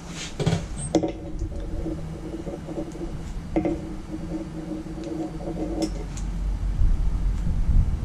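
A few light clicks as split plastic wire wrap is handled, then a steady hum in two stretches, and a low rumble building near the end.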